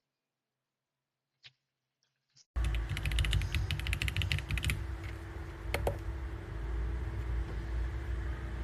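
Typing on an RK M75 wireless mechanical keyboard: a few faint key clicks, then a burst of rapid keystrokes about two and a half seconds in, over a low steady hum.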